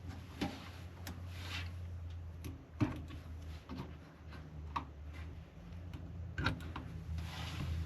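Scattered clicks, light knocks and rustling of computer parts being handled and fitted inside a PC case, over a steady low hum.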